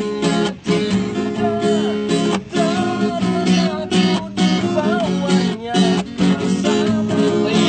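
Acoustic guitar strummed in a steady rhythm, with a man singing over it.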